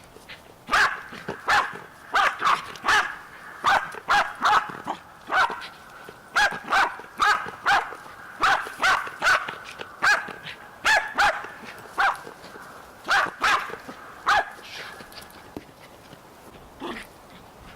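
A dog barking over and over, in quick runs of two or three barks, for about fourteen seconds, then stopping.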